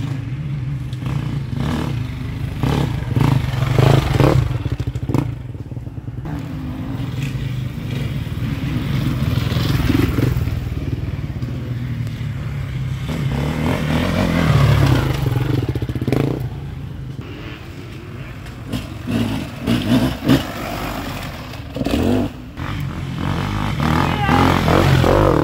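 Enduro dirt bike engines revving and easing off, the pitch rising and falling. A bike comes close and louder near the end.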